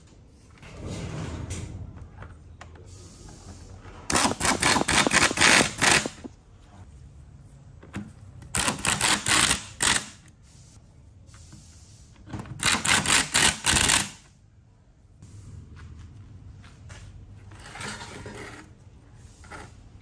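Screwdriver driving screws into a chainsaw's housing as the cover is fitted: three bursts of rapid clicking, each one and a half to two seconds long, with quieter handling of the parts between.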